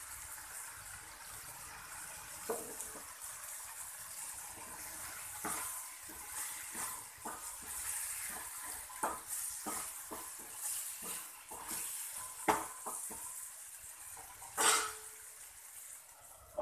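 Curry sizzling in a kadai while a wooden spatula stirs it, knocking and scraping against the pan many times. Near the end comes one louder clank as a steel lid is set on the pan.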